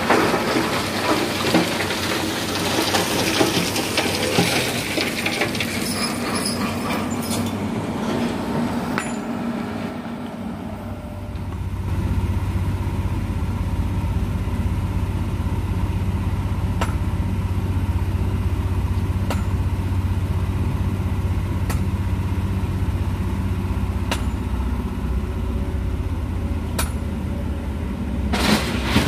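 Diesel dump truck engine idling steadily, a deep even hum that comes in strongly about eleven seconds in, with a few sharp clinks of stone over it. Before that, a noisier mix of scraping and clinking from gravel being worked.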